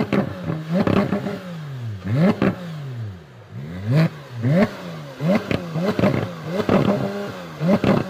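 Porsche 911 GT3 RS flat-six engine free-revving in quick throttle blips, a dozen or so in a row, each climbing sharply and falling straight back, with crackles at the tops of the revs.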